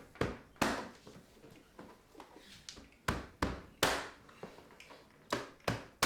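A series of sharp taps on a vinyl molding strip as it is knocked and snapped onto a retrofit window frame. There are about eight knocks in small groups, with pauses between them.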